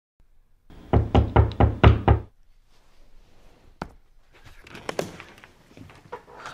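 Rapid knocking on a door, about seven quick knocks in just over a second, followed a moment later by a single click and soft rustling.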